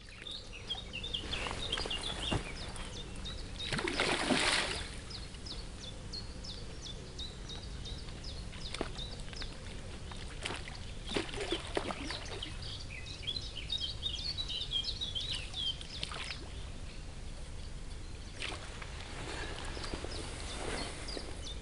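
Small birds chirping steadily, with water splashing near the bank from a hooked fish being played in the margin; the loudest splash comes about four seconds in, with shorter ones later.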